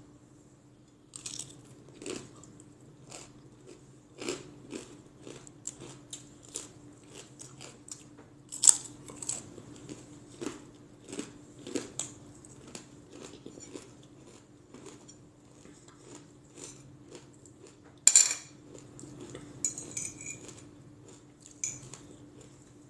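Close-up eating sounds: chewing and crunching, with short clicks of cutlery on a plate, over a steady low hum.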